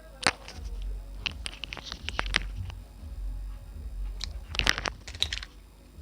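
Bursts of small sharp clicks and scratching from handling small phone parts and tools during a repair, over a low rumble.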